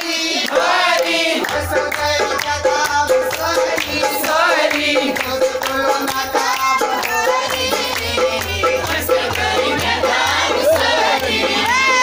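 Music with group singing, joined about a second and a half in by a steady low beat.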